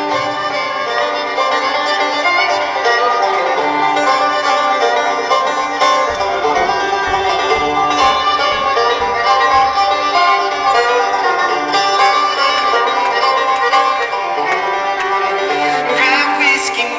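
Bluegrass string band playing an instrumental passage live, with fiddle, banjo, mandolin, acoustic guitar and upright bass together.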